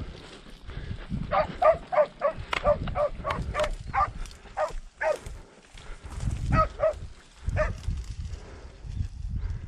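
Podenco hound yelping: a quick run of short, high barks, about three a second, then two single yelps near the end. This is the hound giving tongue, as podencos do when hunting rabbits.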